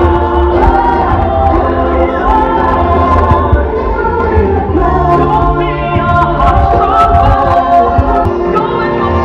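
Stage musical number: a group of voices singing together over loud backing music with a steady bass, played over a theatre sound system.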